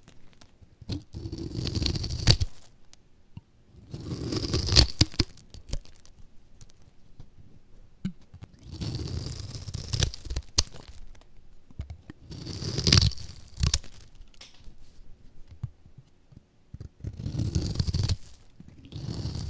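A knife blade cutting through a crunchy dry bar of soap in five slow strokes a few seconds apart, each a crackling crunch as thin slivers break away from the bar.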